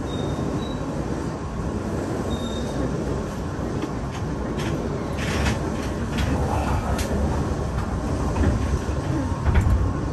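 Keihan electric train heard from behind the driver's cab as it slows to a stop at a station: a steady low rumble of wheels and running gear with scattered clicks and knocks, and a louder low thump near the end.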